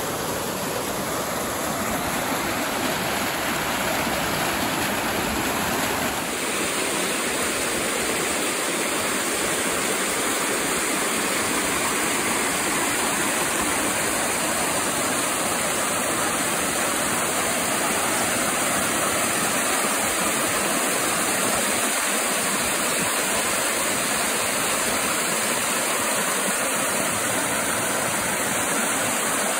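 Small creek waterfall running high, white water pouring and splashing over rock close to the microphone: a steady, loud rushing hiss.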